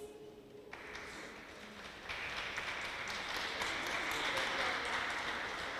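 Audience applauding as a choir's last note dies away; the clapping starts under a second in and grows fuller about two seconds in.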